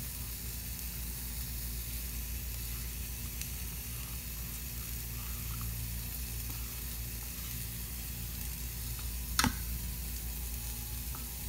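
Steady hiss with a low hum underneath, and one sharp click about nine and a half seconds in.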